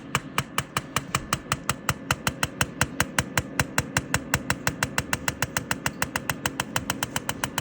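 PEMF8000 Pro pulsed electromagnetic field therapy machine clicking evenly, about six clicks a second, each click one pulse of the field, over a low steady hum.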